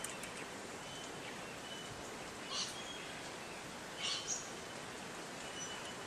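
Wild birds calling faintly over a steady outdoor hiss, with a couple of short, sharp calls about two and a half and four seconds in, and thin high whistles in the background.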